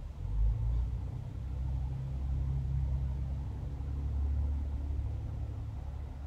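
A low rumble that swells and eases over a few seconds, with a soft thump about half a second in.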